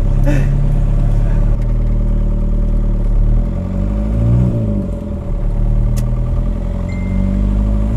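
Volkswagen Caddy's engine heard from inside the cabin while driving. Its note rises and falls once about halfway through, and begins to rise again at the end.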